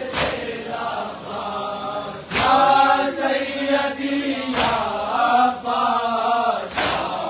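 Men's voices chanting a nauha, a Shia mourning lament, together, with loud sharp slaps of unison chest-beating (matam) landing about every two seconds.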